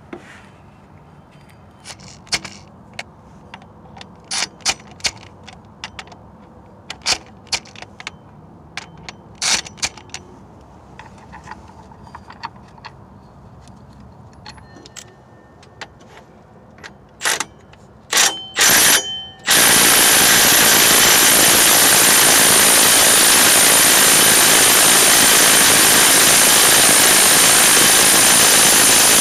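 Small metal clicks and taps as the pulley bolts and the crank bolt with its washer are fitted by hand. Then come a few short bursts, and about twenty seconds in an impact wrench hammers without a break for about ten seconds, driving the crankshaft damper bolt home.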